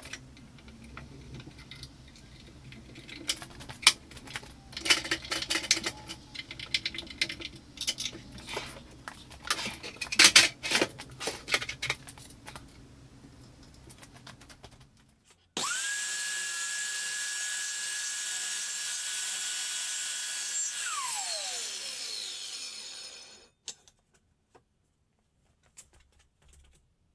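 Irregular knocks and clatter as kitchen drawers and fronts are handled and fitted. About fifteen seconds in, a power tool's motor starts suddenly with a steady high whine, runs for about five seconds, then winds down with falling pitch and stops.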